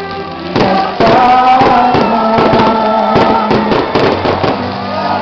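Fireworks popping and crackling over a song with singing, which gets louder about a second in.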